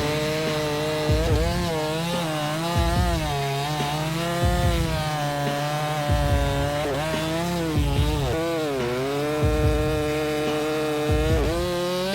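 Chainsaw cutting through wood. The engine's pitch dips under load and recovers again and again as the chain bites. Beneath it is a low pulse at a regular beat, about every second and a half.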